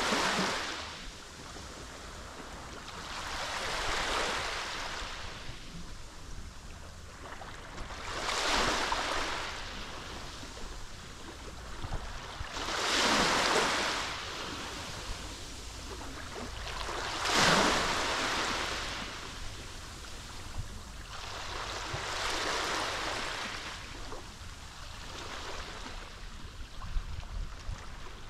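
Small Mediterranean waves breaking and washing ashore. Each wave comes as a hiss that swells and fades, one every four to five seconds, about seven in all.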